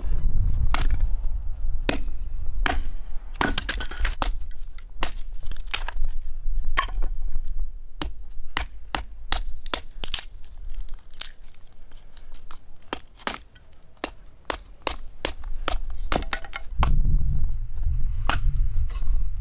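A hatchet splitting kindling on a wooden chopping block: repeated sharp chops and cracks of splitting wood, irregular, at times about two a second.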